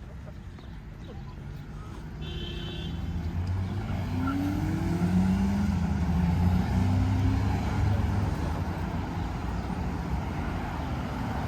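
A road vehicle's engine passing by. It grows louder to a peak about halfway through, its low engine note shifting in pitch, then eases off a little.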